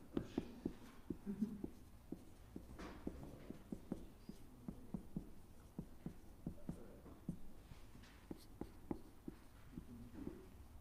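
Dry-erase marker writing on a whiteboard: a faint, quick run of taps and short squeaks as the letters are drawn.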